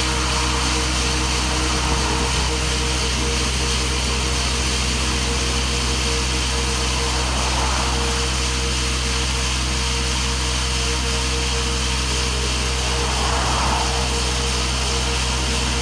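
Diesel-powered T5 coring rig running steadily, its hydraulic motor turning a 300 mm water-cooled diamond core barrel cutting down into the asphalt road surface. Passing traffic swells over it three times, near the start, about halfway and near the end.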